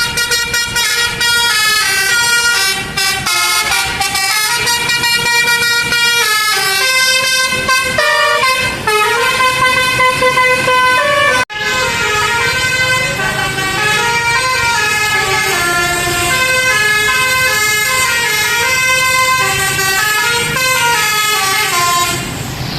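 Telolet basuri musical air horn on a truck or bus playing a fast tune in quick stepping notes. The tune breaks off sharply about halfway through and another tune follows.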